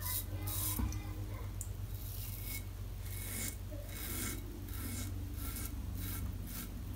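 Yaqi double open comb safety razor cutting more than a day's beard stubble through shaving lather. It makes a quick series of short rasping strokes, each lasting a fraction of a second.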